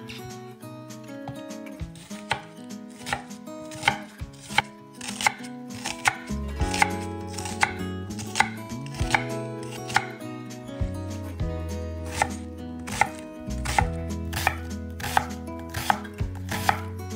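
Kitchen knife chopping food on a cutting board in steady, even strokes, a little faster than once a second, over background music whose bass comes in about six seconds in.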